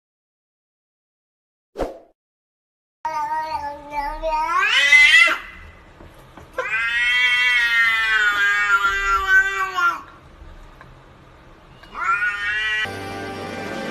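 Domestic cat meowing in long, drawn-out calls: one rising call about three seconds in, a longer one lasting over three seconds, and a short rising call near the end.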